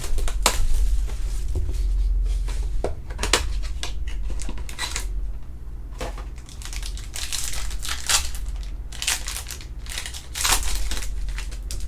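Trading-card box packaging being torn open and crumpled: an irregular run of crinkling and tearing plastic wrap and card stock.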